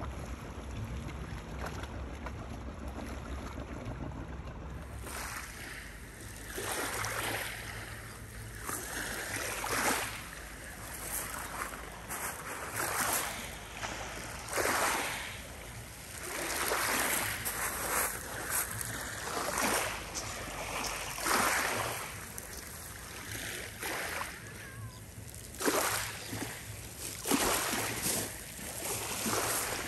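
Low steady rumble of wind on the microphone for about the first five seconds. Then small waves wash over a pebble shore in shallow water, a hiss that swells and fades every one to three seconds.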